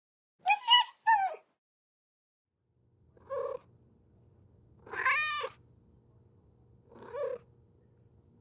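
Domestic cat meowing: two short meows about half a second in, then three more meows over a low steady purr that starts about three seconds in. The middle meow of the three is the loudest and longest.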